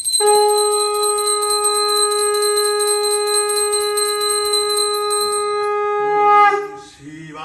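Brass puja hand bell rung rapidly while a conch shell is blown in one long steady note lasting about six seconds. The bell stops shortly before the conch note wavers and ends near the end.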